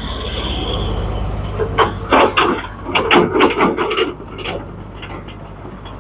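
A vehicle passes with a low rumble and tyre hiss, then, from about two seconds in, a couple of seconds of crunching, scraping clicks.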